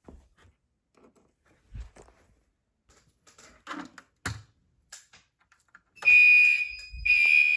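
Voice-evacuation fire alarm sounding its evacuation tone: about six seconds in, a loud, steady, high-pitched electronic tone starts in long pulses, two of them, the signal that comes before each recorded evacuation announcement. Before that there are only a few faint scattered clicks and knocks.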